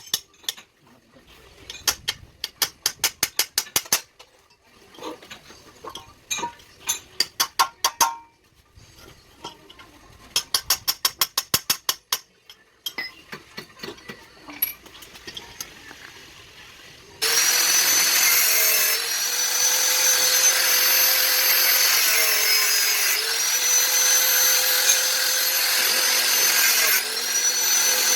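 Bursts of rapid ratchet-like clicks, then, a little past halfway, a power tool starts and runs loudly on the iron plate, its pitch sagging several times as it bears under load.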